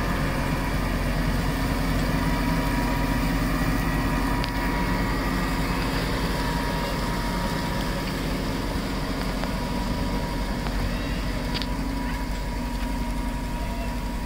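Engine of a Vredo self-propelled digestate applicator running steadily under load as it spreads digestate through its wide boom, with a constant hum at several fixed pitches.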